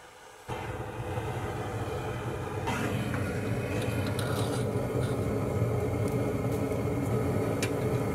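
Gas torch burner lit and firing into a small refractory-lined heat-treating furnace: a steady roar with a low rumble that starts suddenly about half a second in and turns brighter and hissier about two and a half seconds in, as the furnace is brought up to temperature.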